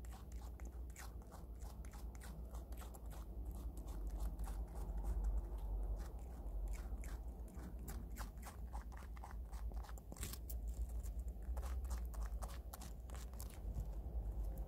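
Prairie dog crunching and chewing raw Korean radish (mu): a rapid, irregular run of crisp bites, several a second.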